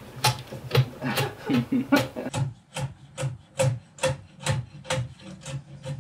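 A hand tool worked back and forth on a short piece of wood, in rhythmic scraping strokes at about two a second.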